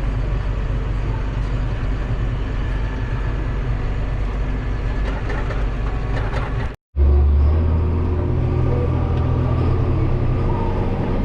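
A heavy farm machine's engine running steadily at working speed. The sound cuts out for an instant about two-thirds through, then returns as a deeper, steadier hum.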